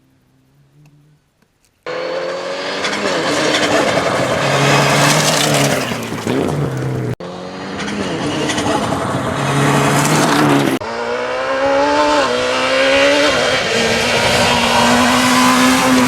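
Rally car engines at full throttle, revving up and dropping in pitch at gear changes, starting suddenly about two seconds in. The sound cuts abruptly twice, at about seven and eleven seconds, to another car running flat out.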